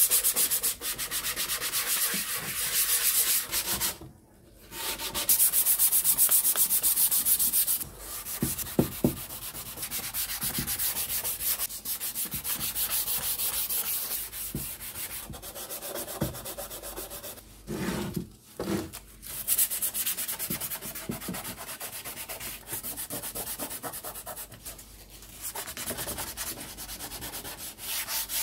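Hand sanding of a small speaker cabinet's painted surface with sandpaper: quick rasping back-and-forth strokes, broken by short pauses about four seconds in and again around eighteen seconds.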